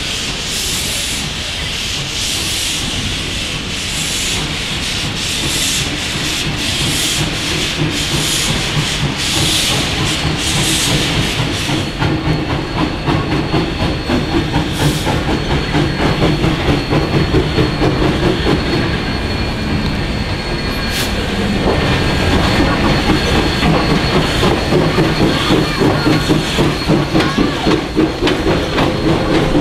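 Flagg Coal #75, an 0-4-0 tank steam locomotive, working with its exhaust in regular hissing chuffs, a little under one a second. From about twelve seconds in it rolls close by, pulling a passenger coach, with a quick rhythmic clatter of wheels on the rails.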